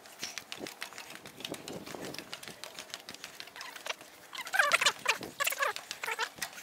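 Footsteps clattering on metal stairs and a steel walkway, a quick run of knocks from several walkers. A few short high-pitched cries break in near the end.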